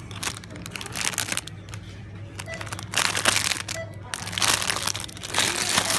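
Clear plastic bag around a magazine crinkling in several bursts as it is handled, over a steady low hum.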